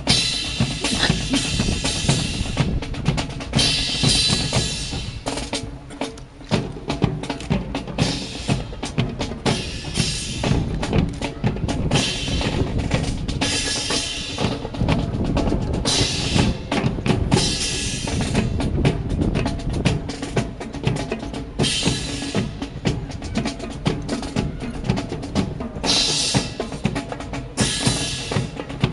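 Drum cadence: snare and bass drum playing rapid rhythmic beats to accompany a rifle fancy drill, with bright splashy bursts every few seconds.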